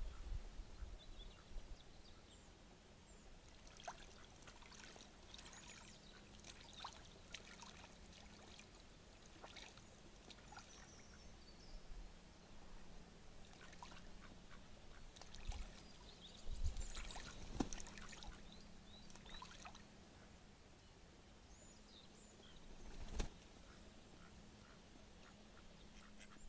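Faint water splashing from a pair of mallards in a shallow pond: scattered small splashes, with a few louder splashes and thumps in the second half.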